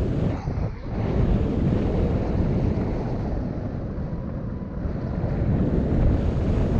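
Airflow buffeting the microphone of a paraglider in flight, a steady low rumble of wind that dips briefly about a second in, eases somewhat in the middle and picks up again near the end.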